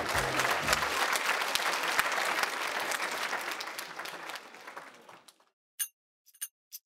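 Theatre audience applauding, the clapping fading out about five seconds in.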